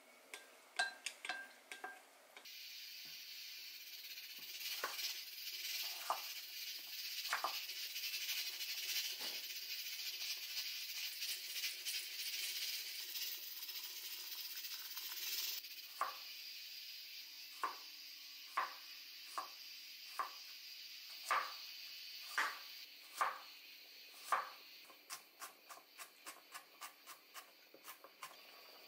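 Wooden chopsticks and a wooden spoon clicking against a glass bowl as seaweed salad is tossed. Then water pours steadily into a stainless steel saucepan of cubed potatoes. After that a kitchen knife chops on a wooden cutting board: single strokes about a second apart, turning to quick chopping of carrot, about three a second, near the end.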